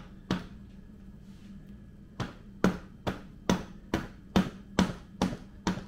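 Rubber mallet tapping the bearing cover plate of a Boston worm gearbox to turn it loose. One blow, then after a pause a steady run of sharp taps, a bit over two a second.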